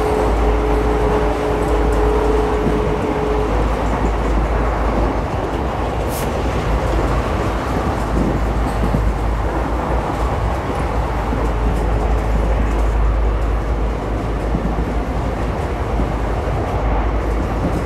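Indian Railways ICF passenger coach running along the track, heard from inside the coach: a steady deep rumble and rattle of wheels on rail. A faint steady whine sounds over it for about the first three seconds.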